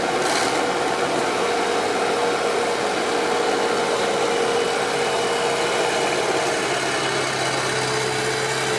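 A motor or engine running steadily, with a low hum that drops slightly in pitch about seven seconds in.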